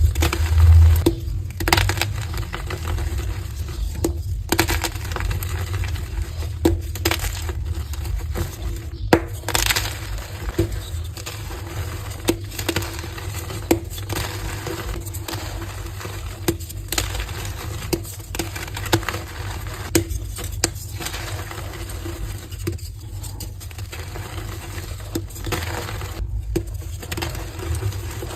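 Heart-shaped blocks of pressed gym chalk being crushed and broken apart: a continuous run of irregular crisp crunches and crackles, some sharper than others.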